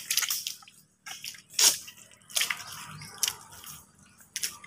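Irregular wet squelches, drips and small splashes of mud and shallow water on a tidal mangrove mudflat, the loudest a little under two seconds in.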